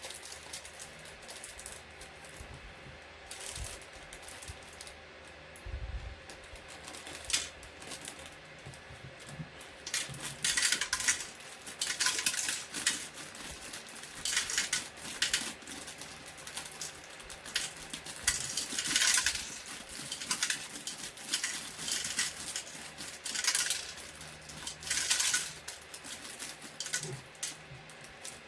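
Plastic Lego Technic pieces clicking and clattering as they are handled and pressed together, in irregular clusters of sharp clicks that get busier about ten seconds in.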